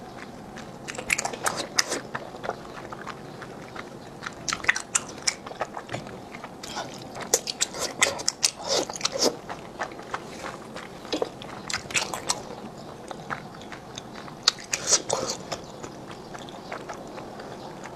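Close-miked wet mouth sounds of eating thick, slippery starch noodles in chili-oil broth: irregular clusters of sharp, smacking clicks as the noodles are sucked in and chewed.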